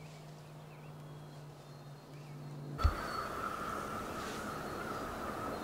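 Outdoor woodland background: faint bird chirps over a steady low hum. About three seconds in there is a thump, and after it a louder hiss with a continuous high, steady trill.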